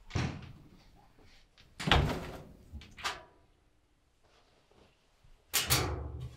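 A wooden door banging three times: once at the start, again about two seconds in, and again near the end, each bang loud with a short ringing tail. A lighter knock comes about three seconds in.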